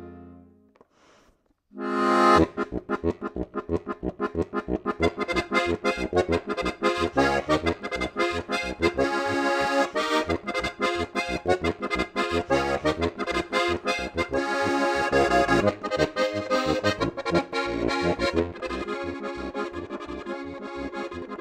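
Steirische Harmonika, a Strasser diatonic button accordion, being played. After a pause of about two seconds a new lively tune starts on a loud chord, a quick melody over a fast, steady pumping rhythm from the bass buttons.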